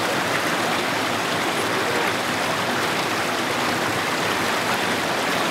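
A small rocky stream rushing over riffles and little cascades, a steady even wash of water.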